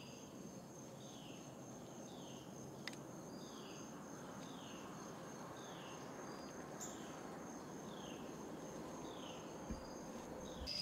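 Faint insect chorus: a steady high trill, with short falling chirps repeating a little more than once a second.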